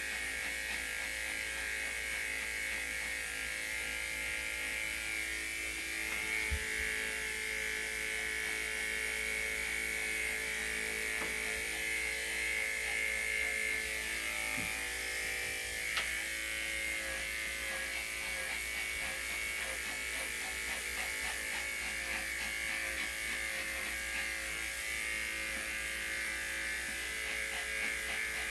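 Electric dog grooming clippers running with a steady buzz as they are worked through a dog's thick coat, with a faint click or two.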